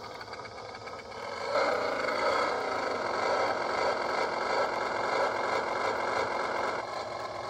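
Small battery-powered ride-on toy motorcycle running, its electric motor whirring as it rolls over gravel. It gets louder about a second and a half in and eases off slightly near the end.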